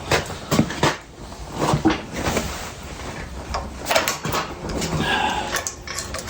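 Irregular metallic clunks, knocks and scrapes of hand tools working a stubborn fitting loose on a log splitter's hydraulic ram.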